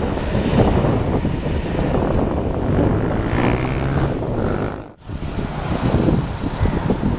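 Bombardier Global Express business jet engines running, a dense rumble with faint whining tones, mixed with heavy wind buffeting on the microphone. The sound cuts off sharply about five seconds in and gives way to wind rumble.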